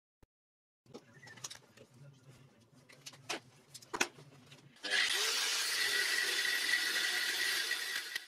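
A Parkside angle grinder cuts through square steel bar stock held in a vise. It starts about five seconds in and gives a loud, steady high whine with a grinding hiss. Before it there are a few faint clicks and knocks.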